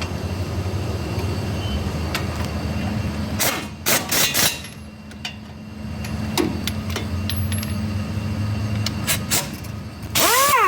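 Metal-on-metal knocks and clanks of tools on a vehicle, a handful of them, over a steady low hum.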